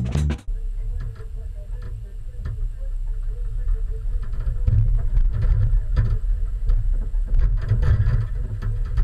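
Low, steady rumble of the tow vehicle's engine as the bass boat on its trailer is backed down the launch ramp, with scattered light clicks. The tail of the intro music cuts off about half a second in.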